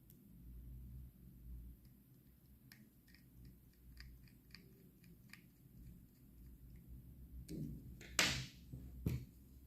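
Hands handling small hair-trimmer parts: a run of light clicks, then a brief loud scraping rustle and a single knock near the end. No trimmer motor is running.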